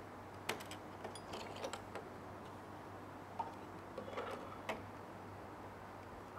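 Faint, irregular clicks and taps of gloved hands routing a printhead cable through the printer carriage, the cable and ink tubing knocking against the metal and plastic parts, over a faint steady low hum.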